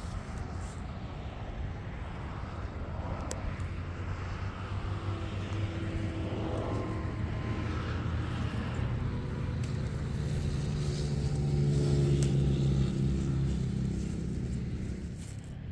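A motor vehicle engine running steadily, growing louder about three-quarters of the way through and then fading.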